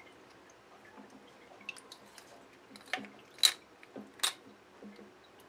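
Small plastic clicks and ticks from handling a handheld bidet sprayer head and hose while a rubber washer is fitted, with two sharp, louder clicks a little past the middle.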